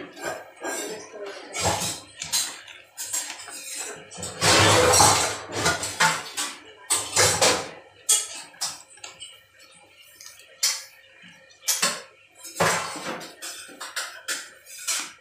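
Spoon stirring liquid in a metal pot, clinking and scraping against the pot in irregular strokes, with louder scrapes about four to five seconds in and again near seven seconds.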